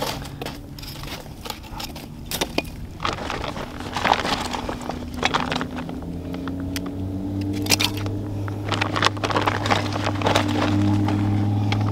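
Split wood and kindling dropped onto the ash and embers of a fire pit: a series of sharp wooden knocks and clatters with crackle between them. A steady low hum builds in during the second half.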